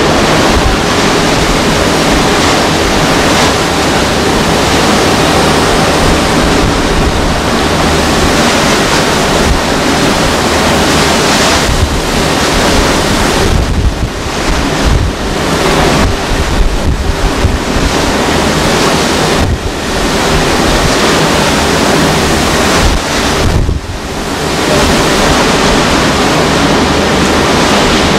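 Hurricane wind and driving rain, with heavy wind buffeting on the microphone. The noise dips briefly several times in the second half as gusts ease and then surge back.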